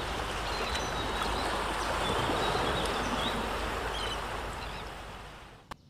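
Steady rushing of sea water, as of waves or surf, with a few faint bird chirps over it. It fades out near the end, with a short click just before it stops.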